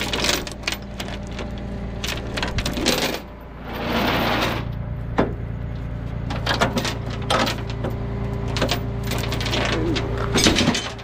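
Steel tow chain rattling and clinking against a flatbed's steel diamond-plate deck as it is handled, over the tow truck's engine idling steadily.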